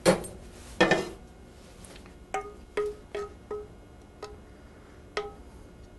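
A metal ladle knocking against a saucepan as pan sauce is scooped up: two sharp knocks at the start, then about six lighter ringing taps over the next few seconds.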